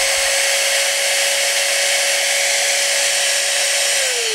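A hair dryer on high, a heat gun and an angle grinder running together on one outlet: steady rushing air with a motor whine. About four seconds in the power cuts and the whine falls away as the motors spin down, because the Cybertruck's 20-amp bed outlet circuit has shut off from overload.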